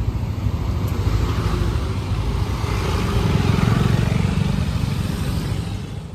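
Moped engine running while riding, with wind noise over the microphone; the sound swells a little past the middle and eases off near the end.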